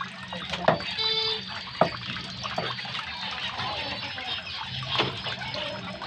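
Heavy cleaver chopping dressed quail on a wooden chopping block: three sharp chops, two about a second apart early on and one about five seconds in, over steady background noise.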